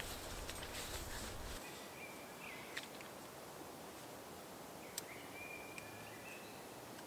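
Quiet forest ambience with a few faint clicks and two thin, steady whistled tones, the second one starting right after a sharp click about five seconds in.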